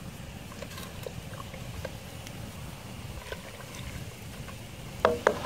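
Wood campfire crackling with scattered small pops, under a low rumble from a pot of boilo coming to a hard boil on the grate. Two sharp knocks with a short ring near the end.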